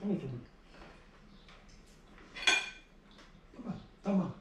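Forks clinking against plates during a meal, with one sharp metallic clink about halfway through.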